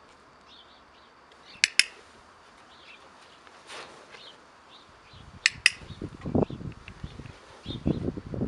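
A hand-held training clicker sounds twice, about four seconds apart, each time a quick double click, as marker signals in clicker training of a rabbit. Faint bird chirps carry in the background, and low rustling sets in over the last few seconds.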